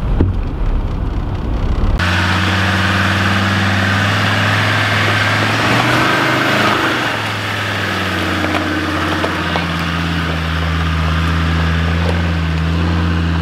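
Land Rover Defender 90 engine running at low revs as the truck crawls along a stony track, a steady low drone whose pitch dips and wavers about halfway through before settling again. It follows a couple of seconds of vehicle cab noise.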